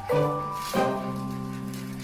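Instrumental background music: a chord struck just after the start and another about three quarters of a second in, the second held steadily.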